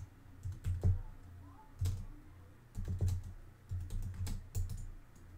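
Typing on a computer keyboard: irregular short runs of keystrokes with pauses between them, over a low steady hum.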